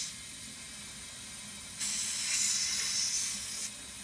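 Air hissing out of the air vent on a hot-water boiler's supply pipe as trapped air is bled from the refilled heating line. The hiss swells louder about two seconds in for nearly two seconds, then drops back to a steady lower hiss.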